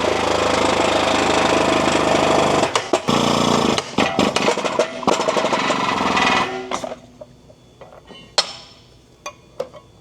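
A power tool hammering steadily while a new wheel bearing is pressed into a steering knuckle, then running in short stop-start bursts and stopping a little past halfway. Light metal clicks and clinks follow.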